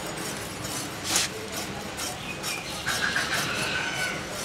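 Eel being scraped, coated in ash, along the blade of a bonti (a curved knife set upright on the ground): short rasping scrapes, the loudest about a second in. A faint high tone, falling slightly, sounds for about a second from three seconds in.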